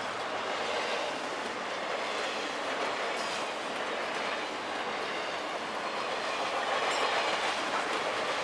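Intermodal freight train's double-stack container cars passing at speed: a steady noise of steel wheels rolling on the rails, with a couple of sharper clicks.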